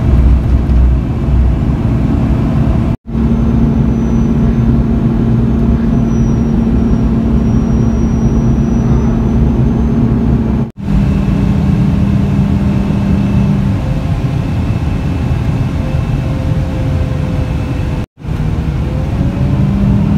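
Bus engine and road noise heard from inside the cabin while riding: a steady drone with a low hum. It drops out briefly three times.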